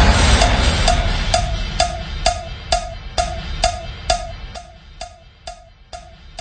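Music winding down to a steady ticking percussion beat, about two sharp knocks a second, each with a short pitched note, over a low rumble, growing quieter toward the end.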